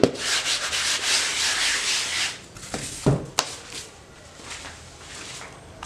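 Sandpaper rubbed by hand over hardened polyester filler on a fiberglass panel: quick back-and-forth rasping strokes for about two and a half seconds, then a couple of knocks as the work stops.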